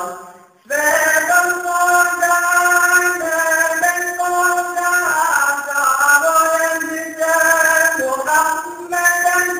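A man sings an ilahija, a Bosnian Islamic devotional hymn, in long ornamented phrases of held notes. There is a short breath pause about half a second in.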